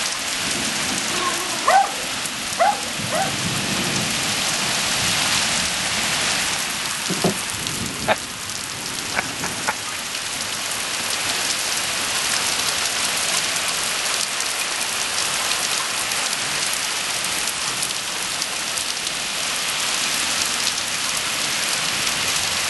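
Steady heavy rain falling on the yard. A few short, sharp sounds break through it, three in the first few seconds and a few more near the middle.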